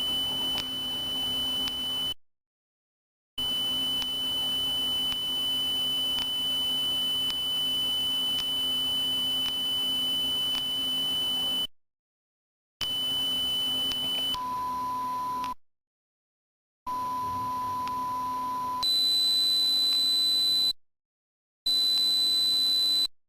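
Steady pure tones for tinnitus masking, sounding in stretches broken by abrupt dead silences. A high-pitched tone drops to a lower tone about fourteen seconds in, then jumps to a still higher tone about nineteen seconds in, over a faint hum and hiss.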